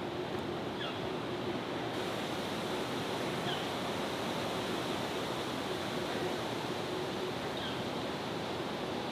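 Steady rushing outdoor background noise, with a faint steady low hum and three faint, brief high chirps about a second in, midway and near the end.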